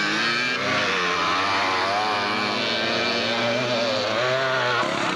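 Motocross dirt bike engine running and revving, its pitch rising and falling again and again as the throttle is worked.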